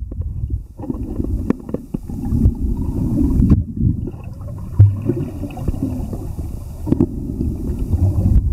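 Muffled underwater noise picked up by a camera held below the surface: an irregular low rumble with scattered clicks and knocks.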